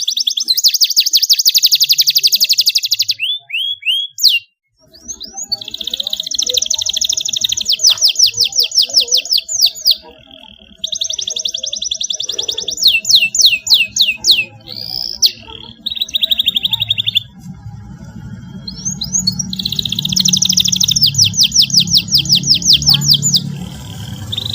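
Domestic canary singing fast trills and rolls of rapidly repeated notes, in phrases of a few seconds broken by short pauses. A faint low hum lies underneath from about five seconds in.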